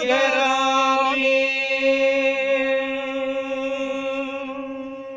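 A man singing a Gojri folk song unaccompanied, holding one long note at the end of a line. The note slowly fades toward the end.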